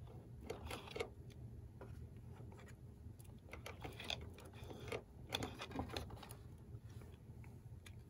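Faint, irregular scrapes and light taps of a card being dragged across thermal paste on a PC processor to spread it.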